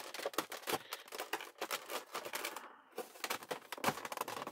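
Stiff clear plastic packaging tray crackling and clicking as it is gripped and flexed by hand, a rapid, irregular run of sharp clicks with a short pause about three seconds in.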